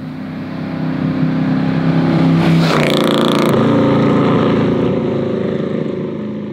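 Marciano 268A sports car with its front-mounted 2.6-litre eight-cylinder engine passing close by. The engine note builds, drops in pitch as the car goes past about two and a half seconds in, then fades as it pulls away down the road.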